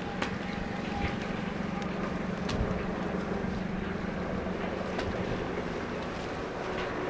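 Wind on the microphone over a low steady hum, which stops about six seconds in, with a few faint clicks.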